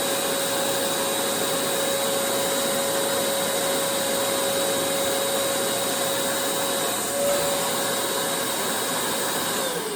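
Vacuum cleaner motor running steadily with a constant whine, then switched off near the end and beginning to wind down in pitch.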